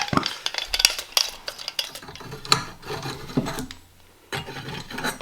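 Small metal pieces clinking and rattling in an irregular run of sharp clicks, as copper plumbing fittings and tools are handled.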